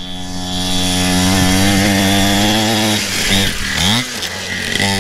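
Engine of a cheap Temu pit bike running hard at high revs as it is ridden along a dirt track, with a steady buzzing note. About three seconds in it drops briefly, then revs up again in a rising whine.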